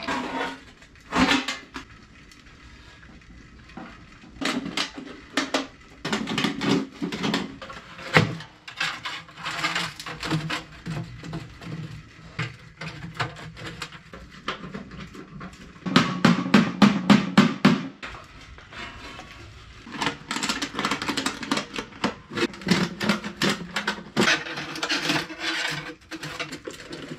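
Thin sheet steel from a cut 55-gallon drum clanking, tapping and scraping as it is bent and stovepipe sections are fitted together, with many short knocks and a run of quick knocks about halfway through.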